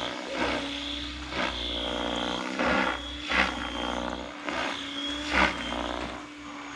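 XLPower 550 electric RC helicopter in flight: a steady whine from the motor and gears under the whir of its 560 mm main rotor blades. The blade noise swells in a whoosh every second or so as the helicopter manoeuvres.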